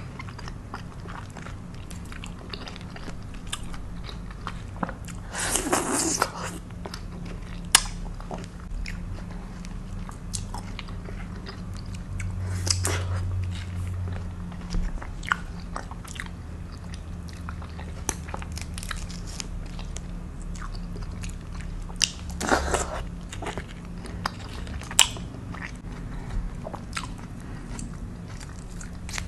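Mouth sounds of chewing and biting soft tropical fruit (rambutan, lansones, mangosteen), with scattered sharp clicks and cracks as fruit rinds are peeled by hand. Two longer, louder stretches of noise come about six seconds in and again about twenty-two seconds in.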